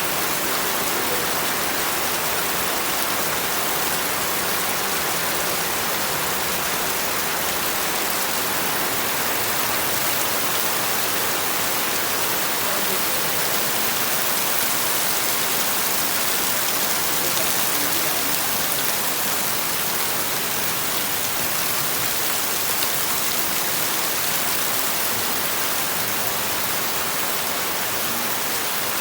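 Steady rain falling, an even, unbroken hiss of drops with no change in strength.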